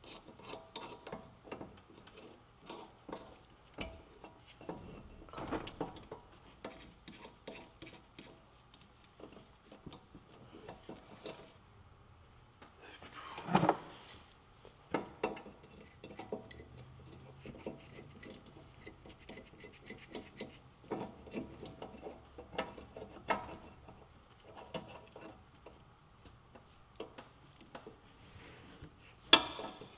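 Scattered light metal clinks and rubbing of hand tools, including a puller, being fitted and worked against the upper front suspension, with one louder clatter about thirteen seconds in.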